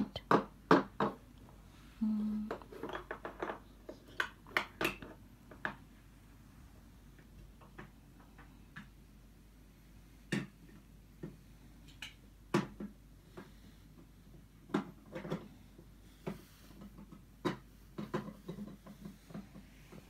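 Irregular light clicks and knocks in a room: clustered in the first few seconds, sparse in the middle, then one every second or two toward the end.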